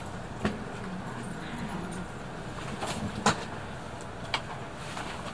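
A few short sharp clicks and knocks over a low steady background, the loudest about three seconds in: a door intercom button being pressed and the front door being handled.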